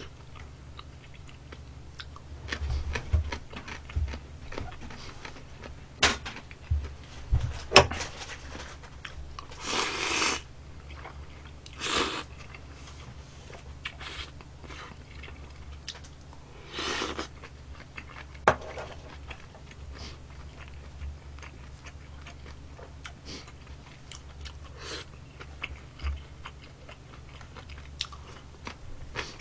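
Close-up eating sounds of army stew with ramen noodles: wet chewing, a few short slurps of noodles and broth, and light clicks of wooden chopsticks and a wooden spoon.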